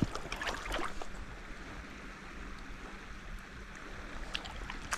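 Flowing river water with a few small splashes and lapping sounds, mostly in the first second and again near the end.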